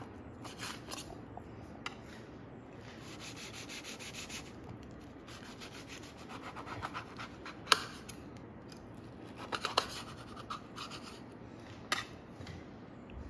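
Kitchen knife sawing back and forth through toasted sandwich bread, a crunchy rasping of the crisp crust. A few sharp clicks of the blade meeting the stainless steel tray come in the second half.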